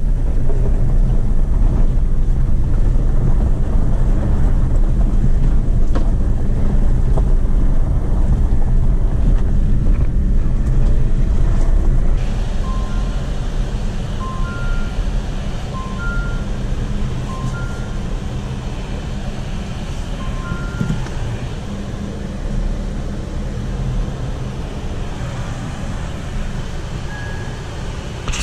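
Inside the cabin of a 2018 Jeep Compass Trailhawk turbo diesel: a steady low rumble of the engine and tyres on a dirt road, which drops in level about twelve seconds in. The car's two-tone electronic warning chime then sounds about every second and a half for several seconds, with one more near the end.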